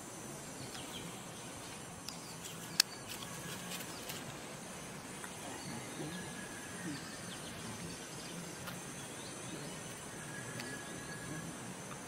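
Outdoor forest ambience: a steady hiss with faint, thin distant calls from small animals, and one sharp click about three seconds in.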